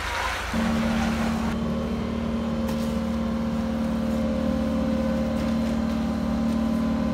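Diesel engine of a John Deere 120 excavator running steadily, coming in abruptly about half a second in after a short hiss.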